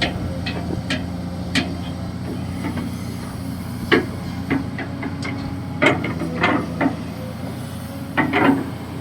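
Kobelco SK200-6 Super hydraulic excavator running steadily while digging, with irregular sharp metallic clanks from the bucket and arm, several bunched together near the middle and near the end.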